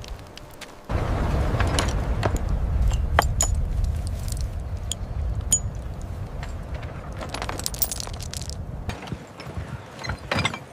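A low rumble setting in suddenly about a second in, with scattered light metallic clinks and clicks over it.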